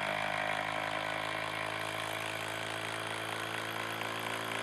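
Hilti brushless impact driver on speed 3, hammering continuously as it drives a long screw into a wooden post: a steady, even rattle under load.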